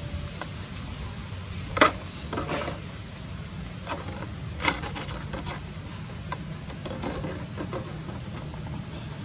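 Empty plastic water bottle knocking and crackling against brick paving as a baby macaque handles and drops it: a few sharp knocks, the loudest a little under two seconds in and another near the middle, over a steady low rumble.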